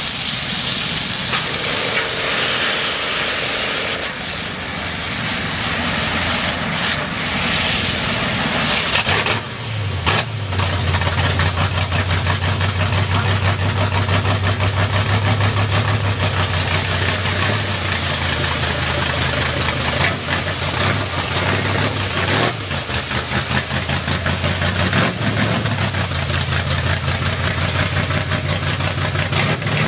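Pressure-washer spray hissing against a mud truck for the first several seconds. About ten seconds in, the mud-covered Ford pickup's engine starts and runs with a low, pulsing beat. Near the end the truck rolls off through the wet mud.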